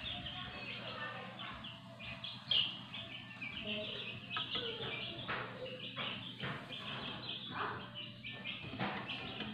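A brood of Brahma chicks, a few days old, peeping continually: many short, high cheeps overlapping one another.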